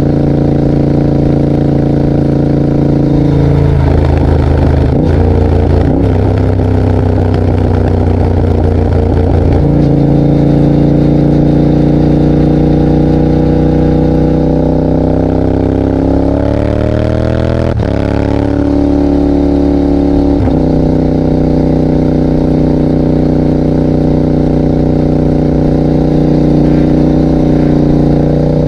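Yamaha Tracer 7's parallel-twin engine running loud through a GPR exhaust with the dB killer removed, holding steady revs with an uneven spell early on. Past the middle the revs rise under acceleration and drop sharply at a quickshifter upshift, then settle steady again.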